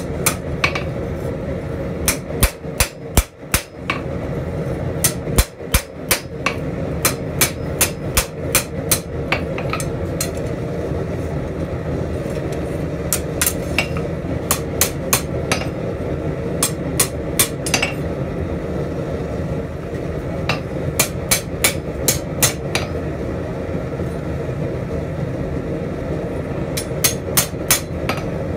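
Hand hammer striking a steel spatula's handle on an anvil, in quick runs of several blows about four a second, with pauses between the runs. A steady low rumble runs underneath.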